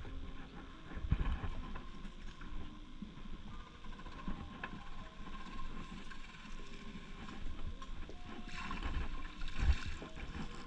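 Water sloshing and splashing, with a louder splash about nine seconds in.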